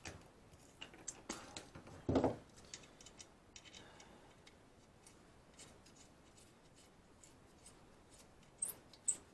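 Metal tools and parts being handled during wheel reassembly on an ATV: scattered light clicks and ticks, a knock about two seconds in, and two sharp metallic clicks near the end.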